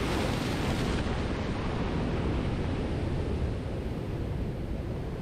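A big swell wave crashing into the rocks with a loud rush of spray, then foaming seawater washing back over the rocks as the noise slowly dies down.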